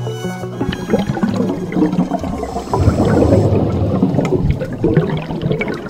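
Water sloshing and gurgling, with background music trailing off in the first second or two.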